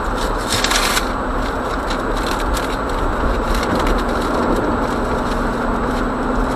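Jeep Wrangler driving on a snow-covered road, heard from inside the cabin: steady tyre and road noise with a low engine drone. A short hiss about half a second in.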